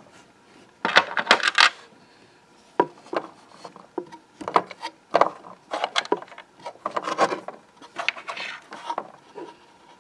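Small plastic toy pieces clicking, knocking and rattling against a plastic toy-kitchen counter as they are handled, in a string of short taps and brief clattering runs.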